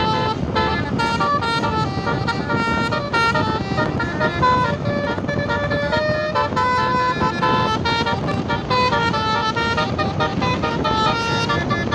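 Tour bus's Basuri telolet horn playing a fast tune, one short pitched note after another without a break, over a steady low rumble.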